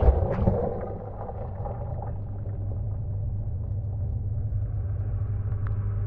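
Gorenje WA 65205 washing machine heard from inside its drum: a couple of knocks and water sloshing as the load tumbles at the start, then the drum comes to rest and a low steady hum from the machine slowly grows louder.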